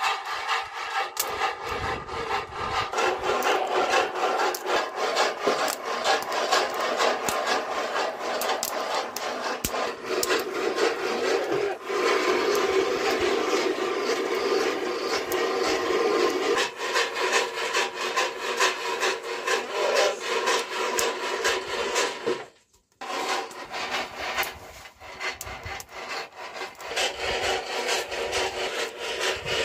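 Maize kernels roasting in a rope-hung metal roasting box over a fire, shaken by its handle: a dense rattling and scraping of the kernels against the metal, with many small clicks. It drops out briefly about two-thirds of the way through, then goes on.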